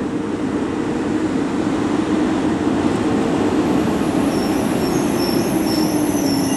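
Mack LEU garbage truck with a McNeilus Contender front-loader body driving slowly closer, its diesel engine and drivetrain droning with a whine that slowly drops in pitch and grows louder as it approaches. A thin high squeal joins in about four seconds in.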